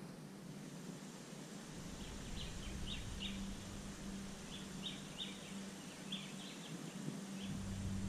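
Small birds chirping in short, high, repeated notes, coming in scattered groups, over faint steady background noise. A low rumble comes in near the end.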